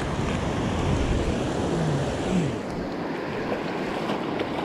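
Ocean surf breaking and washing up the beach, with wind rumbling on the microphone; the wind rumble eases after about three seconds.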